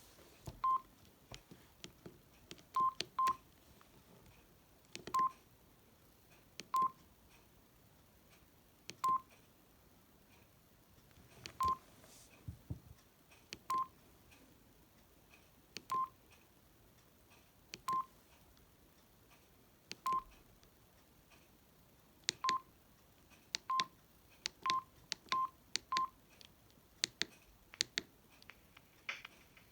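Samsung SGH-D600 mobile phone keypad tones: short single beeps at one pitch, about sixteen of them one to two seconds apart and quicker near the end, each with a faint key click, as the phone's keys are pressed to move through its menus.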